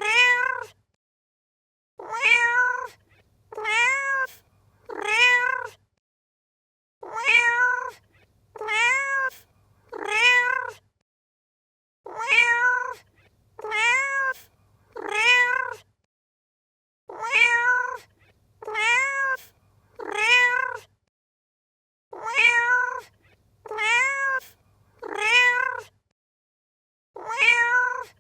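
A domestic cat meowing over and over. The calls come in groups of three, about a second and a half apart, with a short pause between groups. The same clip is looped, so every group is identical.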